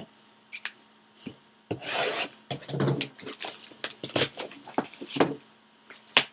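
A sealed trading-card box being handled and opened by hand: a few light clicks, then from about a second and a half in a busy run of rubbing, scraping and clicking of the packaging, with a sharp click near the end.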